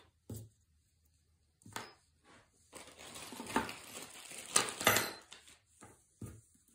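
Small metal hardware and tools being handled by hand: a few light clicks, then a couple of seconds of rustling and clinking with two sharp clinks, and one last click near the end.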